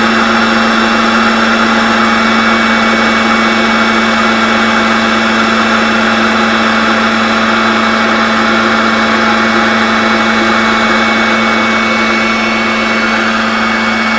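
Electric food processor motor running at a steady hum as oil is drizzled in to emulsify an egg-yolk salad dressing.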